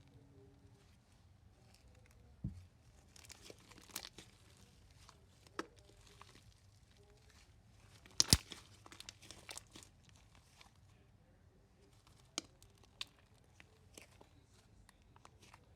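Slime and its containers being handled: scattered crackling, crinkling and light clicks, with a sharp click about eight seconds in.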